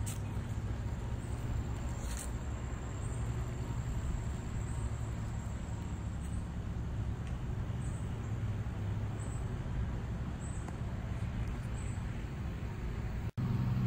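Distant earth-moving machinery running, a steady low engine drone.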